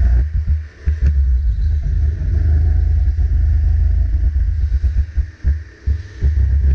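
Onboard sound of a two-seater rental kart's 270 cc four-stroke engine running under throttle, a heavy low rumble that dips briefly a few times as the driver lifts for corners.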